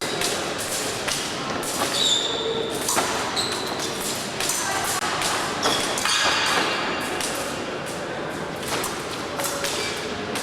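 Épée fencing in a large hall: repeated thuds and taps of footwork on the piste and sharp clicks, with short metallic pings of blades, over background chatter.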